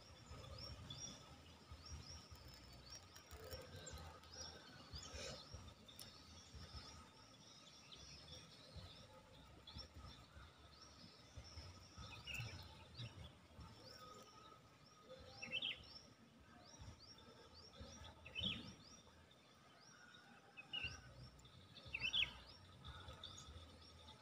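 Faint outdoor background of small birds chirping: short, high calls repeat throughout, with a few louder chirps in the second half.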